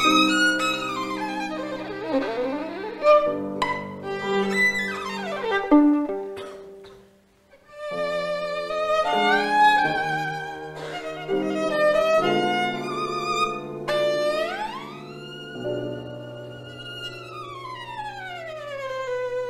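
Background music: a violin melody with vibrato over held lower string notes. The music drops away briefly near the middle. Later the violin makes a slow slide upward, holds, then a long slide back down near the end.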